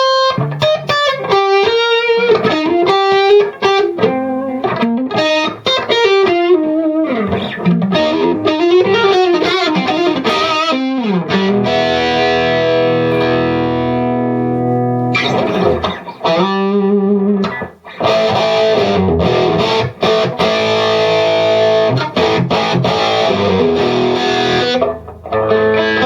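Electric guitar played through a KONG 6810HW amplifier head into a Marshall 4x12 cabinet with Celestion Vintage 30 speakers. It plays single-note lines for about the first eleven seconds, then held chords, with two brief breaks a little past the halfway point.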